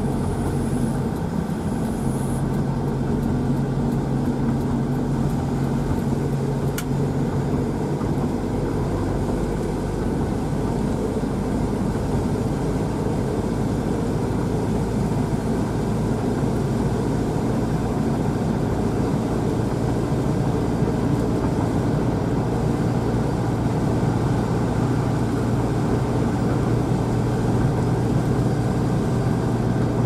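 A car driving steadily on a highway, heard from inside the cabin: a constant engine hum with tyre and road noise.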